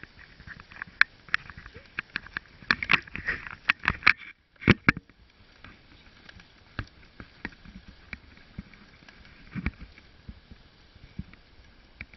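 Wooden dog sled running over a snow trail behind a dog team: irregular clicks, knocks and scrapes from the sled and its runners over a faint hiss. They come thickest in the first five seconds, with one hard knock just before the five-second mark, then grow sparser.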